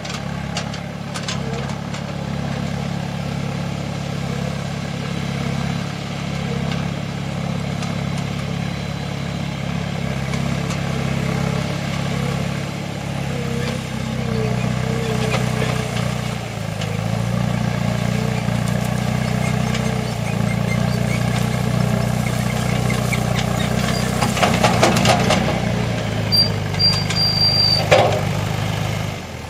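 Volvo backhoe loader's diesel engine running steadily under load as the machine climbs a rough track, growing louder as it comes closer. Near the end there is a rattling clatter as the load of gravel is tipped out of the front bucket.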